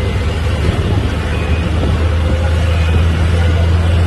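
A moving road vehicle's engine and road noise, heard from on board: a steady low drone with a noisy rush above it.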